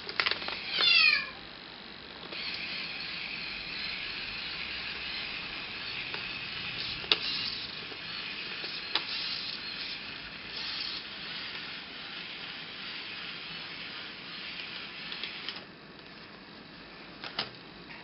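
A kitten meows once, loudly and falling in pitch, about a second in. Then a radio-controlled toy's small electric motor whirs steadily for about thirteen seconds and stops near the end, with a few sharp clicks along the way.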